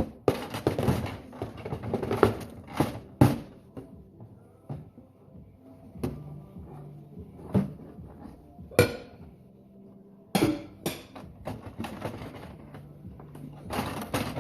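Dishes and utensils clinking and knocking against each other while dishes are washed, with a busy run of clatter in the first few seconds and sharper single knocks later.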